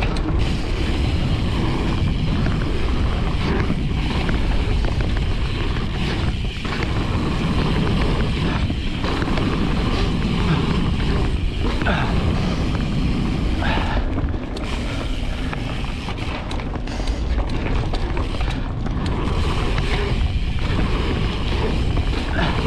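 Wind rushing over the microphone and knobby tyres rumbling on a dirt trail as a Specialized Status 160 mountain bike descends at speed, with the bike rattling and knocking over bumps.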